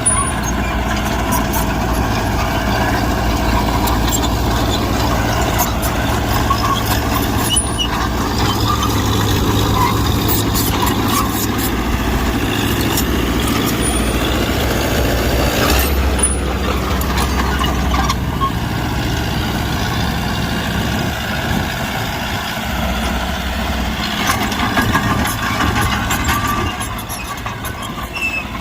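Mitsubishi BD2G bulldozer's diesel engine running steadily while working, with a few sharp clicks. The engine gets somewhat quieter near the end.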